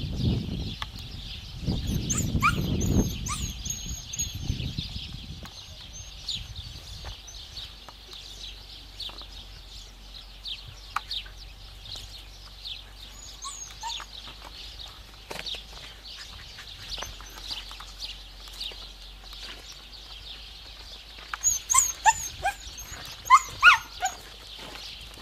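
Canine yips and barks: scattered short calls, with a cluster of sharp, pitch-gliding yips near the end, over a steady high hiss. A low rumble runs through the first few seconds.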